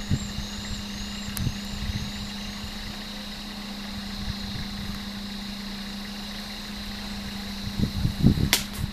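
A vehicle engine idling steadily with a low, even hum. Near the end come a few low thuds and a sharp click.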